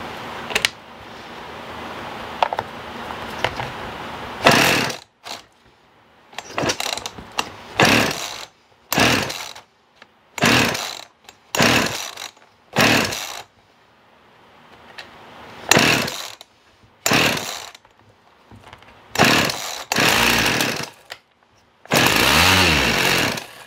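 Husqvarna 50 Rancher two-stroke chainsaw running unsteadily and dying about four and a half seconds in. It is then pull-started over and over in short loud bursts one to two seconds apart, catching for a little longer near the end before dropping out again. It keeps dropping out as if starving for fuel: the fuel line had pulled out of the tank, so there is no pickup or filter in the fuel.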